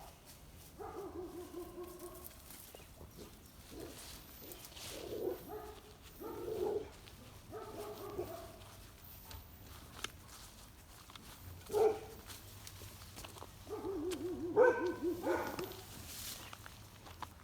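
A dog giving a series of drawn-out whining cries, each a second or two long with short pauses between; one near the end wavers up and down in pitch.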